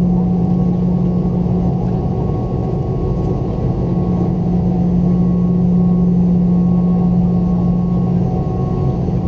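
Boeing 717's two BMW Rolls-Royce BR715 turbofan engines running, a steady loud hum with a strong low tone over a rumble.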